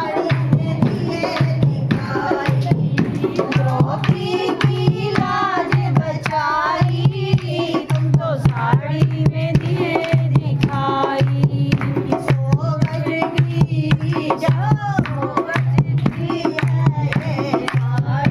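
Women singing a Hindu devotional kirtan together, with a steady dholak drum beat and hand clapping keeping time.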